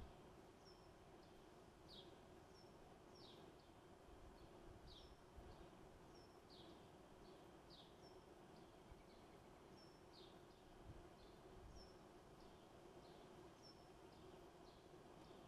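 Faint background birdsong: a songbird repeating a short phrase, a brief high note and a quick falling slur, about every one and a half to two seconds, over a steady low hum.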